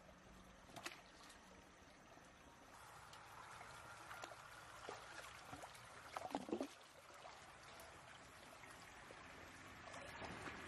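Shallow stream trickling faintly, with a brief splashing of a hand in the water a little after six seconds.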